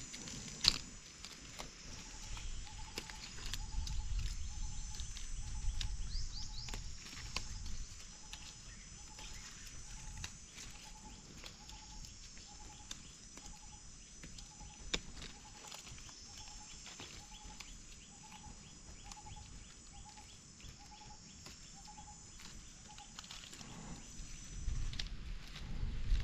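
A steady high drone of insects, with a bird repeating one short low note about twice a second through most of the stretch. A few sharp snaps and some low rustling break in, the loudest snap about a second in.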